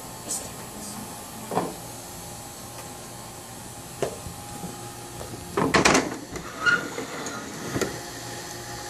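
Plastic anatomy muscle model being handled and moved: scattered knocks and bumps, with the loudest clatter about six seconds in, over a steady room hum.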